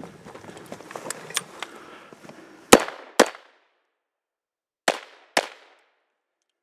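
Four gunshots from a rifle, fired in two quick pairs about half a second apart, each with a short echo. Before them come shuffling and small clicks.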